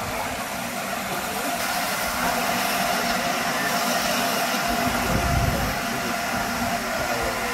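Steam train standing at a station platform: a steady hiss with a low rumble underneath, swelling briefly about five seconds in.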